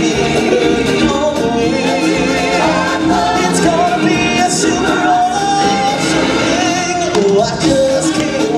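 A man singing live into a handheld microphone over amplified backing music, holding some notes with vibrato.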